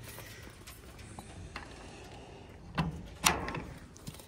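Two sharp knocks, about half a second apart with the second louder, from a wooden rabbit-hutch door and its metal slide latch being handled.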